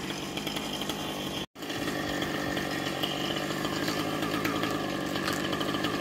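Chainsaw engine running steadily, cutting out for a moment about one and a half seconds in and then running on.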